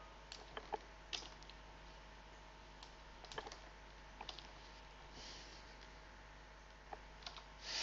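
Scattered computer keyboard keystrokes and mouse clicks, faint and irregular with a small flurry about a third of the way in, over a steady low hum.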